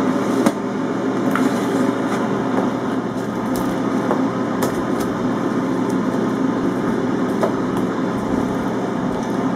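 Britânia BFR2100P air fryer oven's fan running with a steady hum, with scattered light clicks of metal tongs against chicken drumsticks and the wire rack.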